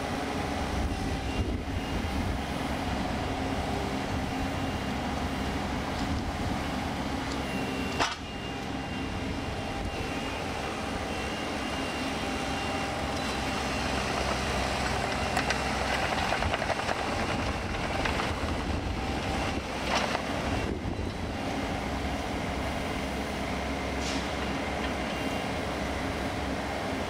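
Komatsu PC18MR mini excavator's diesel engine running steadily under hydraulic work as it digs and travels on its tracks, with a sharp knock about eight seconds in and a few clanks later on.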